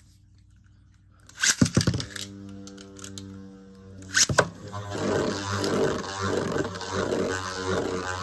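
Metal Fight Beyblade tops launched into a stadium. About a second and a half in there is a clatter of launch clicks, then a steady spinning hum. A sharp clack comes around four seconds in, and after that a louder, rougher, pulsing whir and scrape as the tops spin and grind.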